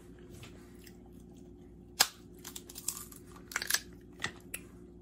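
Crab leg shells being cracked by hand, with one sharp crack about two seconds in followed by a run of smaller cracks and clicks, mixed with close-up chewing.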